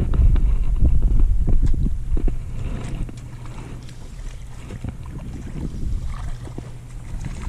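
Wind rumbling on the microphone, loudest in the first two and a half seconds and then easing, over a steady low hum.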